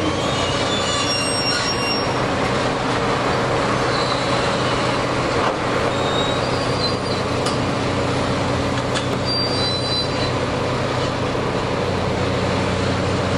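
Diesel construction machinery running steadily, with short high-pitched metallic squeals now and then.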